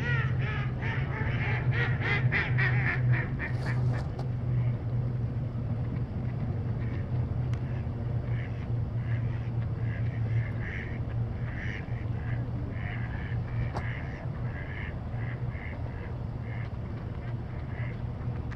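A flock of ducks on open water calling, many short calls in quick runs, busiest in the first few seconds and again midway. Underneath runs a steady low hum.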